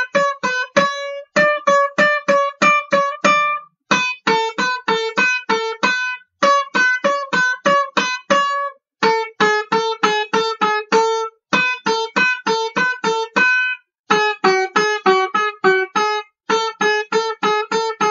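Instrumental country banjo music: quick runs of plucked notes in phrases of about two seconds, each broken off by a brief gap of silence.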